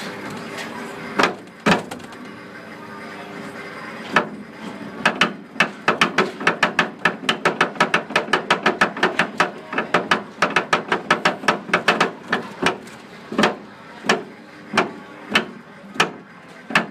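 Suspended amusement-ride gondola's running gear on its overhead rail: a steady running noise, then a run of sharp clicks about four a second that spread out to about one every half second or more near the end as the car moves through the station.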